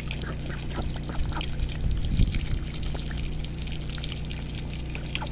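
Domestic ducks dabbling with their bills in a shallow muddy puddle: a scatter of small wet splashes and slurping clicks, over a low steady rumble.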